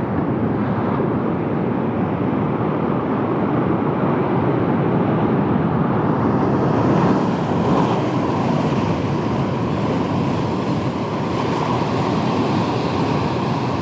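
Steady rush of wind and breaking surf, with wind buffeting the microphone; the hiss grows brighter about halfway through.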